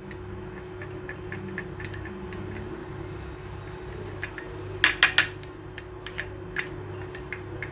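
A spoon clinking against a bowl in quick repeated taps, about three a second, as it stirs a thick mixture of olive oil, honey and lemon, with three louder knocks about five seconds in.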